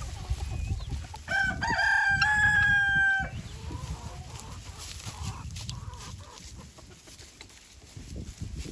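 A rooster crowing once, starting about a second in and lasting about two seconds, the call rising and then held on one note before it cuts off.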